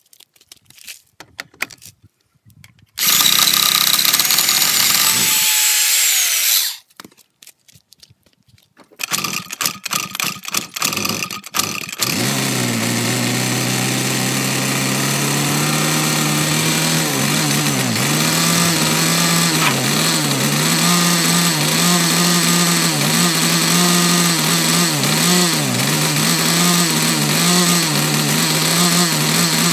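Clicking and rattling, then a loud burst of noise lasting a few seconds. About twelve seconds in, a small motor starts and runs steadily to the end, its pitch wavering.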